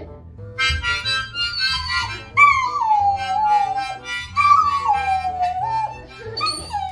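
A toddler blowing chords on a harmonica while a white puppy howls along, three long howls that slide down in pitch.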